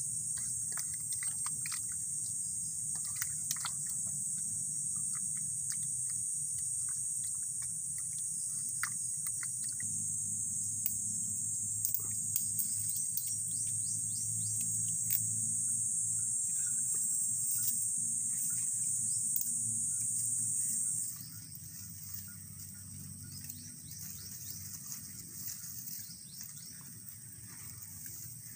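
Steady, shrill insect chorus from the surrounding forest, dropping sharply in level about three quarters of the way through, over a low steady hum, with scattered faint clicks and short chirps.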